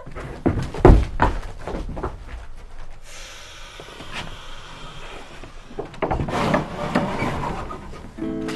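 Footsteps and knocks on a wooden boardwalk, the loudest thump about a second in, with a stretch of steady hiss in the middle and more knocking and rustling near the end.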